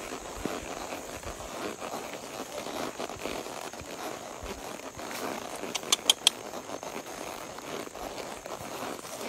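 Steady rustling and crackling noise, with a quick run of four sharp clicks about six seconds in.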